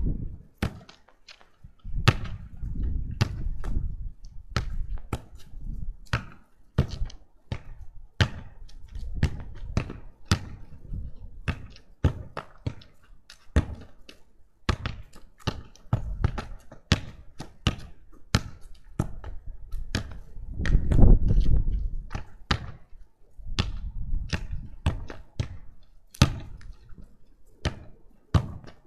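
A leather football being kicked against a house wall over and over: many sharp, irregular thuds of foot on ball, ball on wall and ball bouncing on the ground. Patches of low rumble come and go between them, loudest about two-thirds of the way in.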